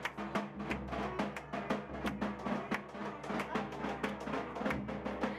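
Lively music with fast, busy drumming over a steady low tone.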